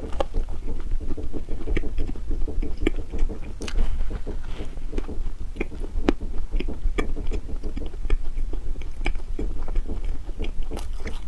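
Close-miked chewing and biting of soft, sticky snow skin mochi: wet mouth clicks and smacks, several a second, over a steady low hum.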